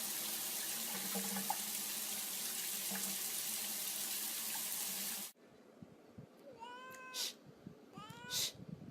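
Steady hiss of running water for about five seconds, cut off suddenly. Then a cat meowing, short falling calls about once a second.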